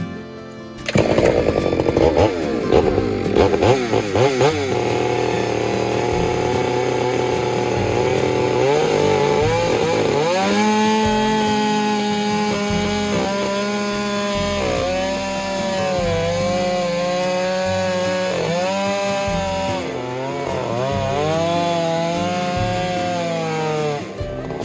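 Chainsaw running at high revs and cutting through fir log, starting abruptly about a second in, its engine pitch repeatedly dipping and recovering as the chain bites into the wood.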